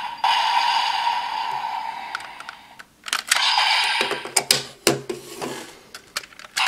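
The electronic sound effect of a DX Magnum Shooter toy, its finisher tune and tone, fading out over the first few seconds. Then a run of sharp plastic clicks and knocks as the toy and its buckles are handled.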